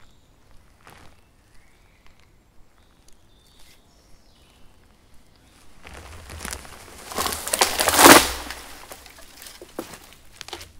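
A small, shallow-rooted spruce being pushed over by hand: a rush of noise from its branches and roots that builds from about six seconds in, peaks near eight seconds and dies away.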